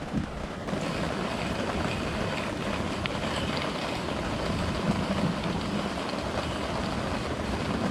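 Steady rushing of river water over rapids.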